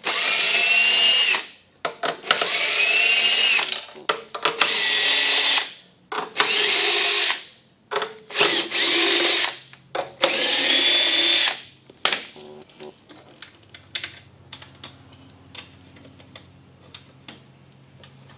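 Cordless drill spinning a 10 mm socket to back out the bolts along the base of a battery module: six runs of a second or two each, the motor whine rising in pitch as it speeds up. After that come light clicks and handling sounds.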